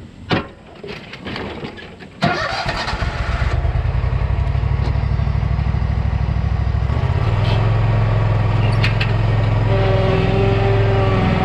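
A sharp click, then another click about two seconds in as an engine starts and keeps running steadily. Its sound shifts about seven seconds in, and a higher steady hum joins near the end.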